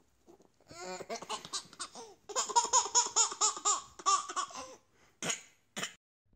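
A baby laughing hard in a rapid, rhythmic run of about five bursts a second, starting just under a second in and dying away before the end, then two short laugh sounds.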